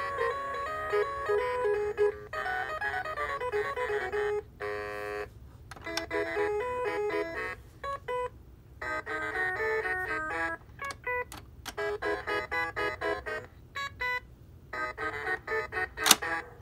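Fisher-Price Baby Smartronics animal quartet toy piano playing short electronic melodies through its small speaker, bright beeping notes in several phrases with brief pauses between them and a buzzy held tone at about five seconds. A sharp plastic click comes near the end as a hand presses one of the animal figures.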